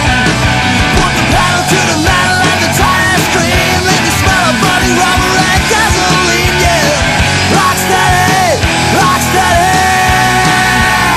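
Loud rock music with distorted guitars playing without a break.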